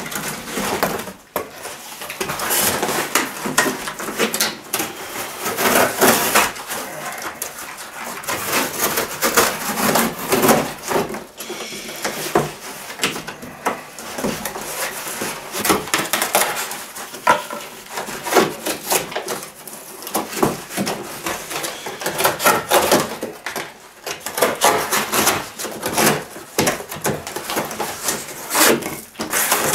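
Extrema Ratio Task C knife's serrated edge sawing through thick corrugated cardboard: irregular back-and-forth rasping strokes of the blade through the board.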